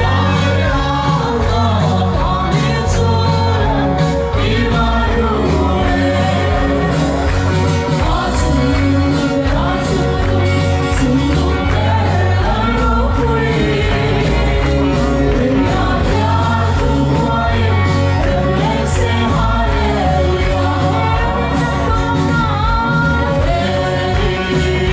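Gospel worship song: singing over a band, with a steady pulsing bass and regular drum beats.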